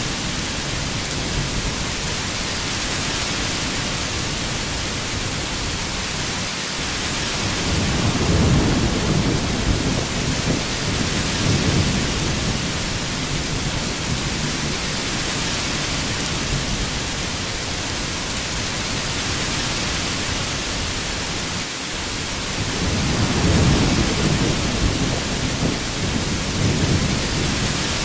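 Heavy rain falling in a steady hiss, with low thunder rumbling twice, about eight seconds in and again about twenty-three seconds in.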